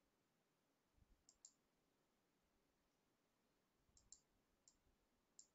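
Faint computer mouse clicks over near silence: a quick pair about a second in, then several more from about four seconds in.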